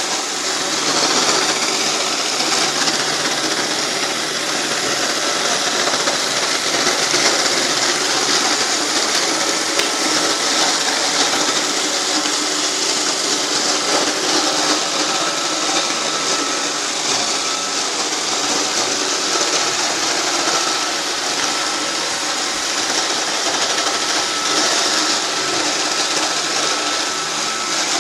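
iRobot Roomba 560 robot vacuum running, a steady whir of its vacuum motor and brushes with a faint high whine.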